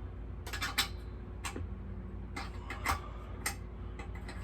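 Scattered light metallic clicks and taps from hand tools and small engine parts being handled during a mini bike engine teardown, some in quick pairs, over a steady low hum.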